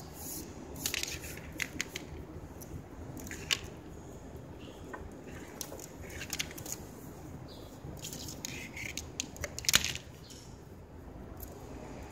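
A flat wicker strand being threaded and pulled by hand through the woven arm of a wicker chair: scattered short scratchy rustles and clicks as the strand rubs against the weave, the loudest cluster about three-quarters of the way through.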